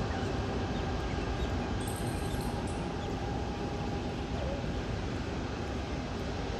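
Airbus BelugaXL's twin Rolls-Royce Trent 700 turbofan engines running at taxi power as the aircraft turns: a steady tone over a low rumble.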